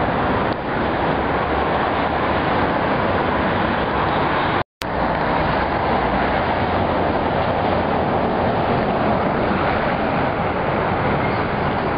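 Steady rushing outdoor background noise, loud and even, broken by one sudden dropout of a fraction of a second a little before five seconds in.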